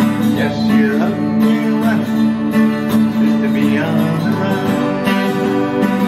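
Twelve-string acoustic guitar strummed in a steady rhythm, ringing chords of a country-folk song.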